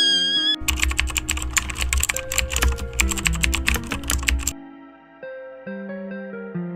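Rapid, clattering computer keyboard typing for about four seconds, stopping suddenly, over light background music that plays on alone afterwards.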